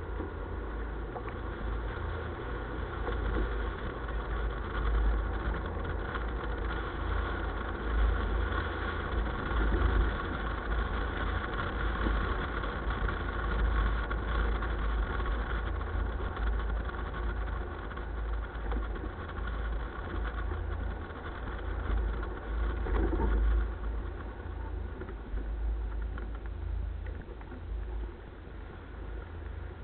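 A running engine, a steady low rumble with a continuous hum.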